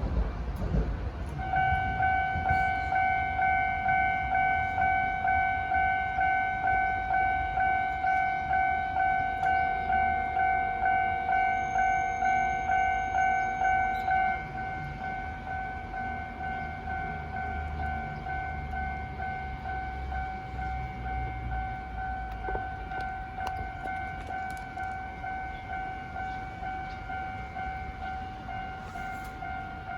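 Japanese railway level-crossing warning bell ringing its 'kan-kan' alarm, about two strokes a second. It starts about a second and a half in and drops in level about halfway through.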